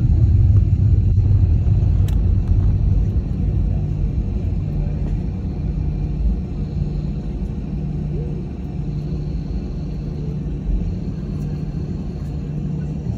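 Low rumble of an airliner taxiing, heard from inside the cabin: engines at taxi power and wheels rolling on the taxiway, with a steady low hum underneath. Loudest at first, easing off gradually.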